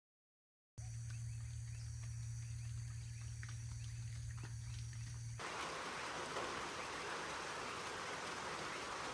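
Country ambience in two cuts: first a low steady hum with short, faint bird chirps over it, then, cutting in suddenly about halfway through, a steady rushing noise like rain or running water.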